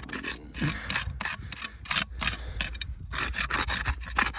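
Rapid, irregular clicking and scraping, about a dozen sharp clicks over four seconds.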